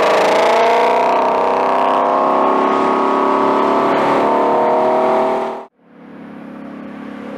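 Ford Shelby GT350's 5.2-litre flat-plane-crank V8 running hard through its exhaust, its pitch easing down slightly. It cuts off abruptly about five and a half seconds in, and a quieter engine sound then grows louder near the end.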